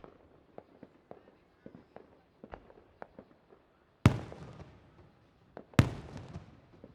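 Fireworks going off: scattered small pops and crackles, then two loud booms about a second and a half apart, each trailing off in a long rumbling echo.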